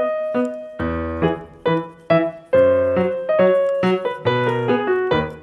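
Background piano music: a melody of struck notes, each dying away, over low bass notes.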